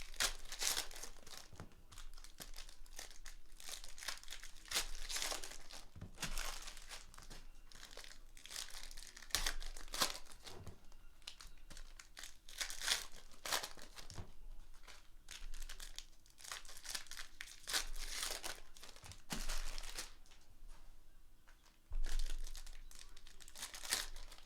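Foil trading-card pack wrappers being torn open and crinkled by hand, in a run of irregular rustling and ripping bursts.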